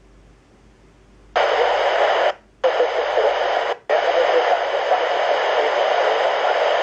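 Handheld airband radio scanner putting out static hiss in three bursts, the first starting about a second and a half in, each switching on and off abruptly as the squelch opens and closes, with no clear speech.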